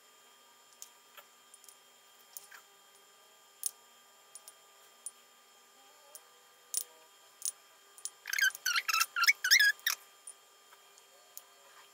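Soft taps and clicks of a silicone pastry brush dabbing egg wash onto balls of cookie dough on a baking tray. Near the end comes a quick run of high, wavering squeaky chirps, the loudest sound here.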